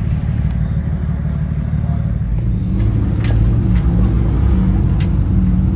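4x4 engine running under load on a rough muddy climb, a steady low drone that grows louder about two and a half seconds in, with a few sharp knocks over the next couple of seconds.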